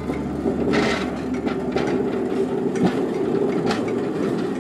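Pedal rail bike (draisine) rolling along the track: a steady rumble of its steel-tyred wheels on the rails, with a few sharp clicks.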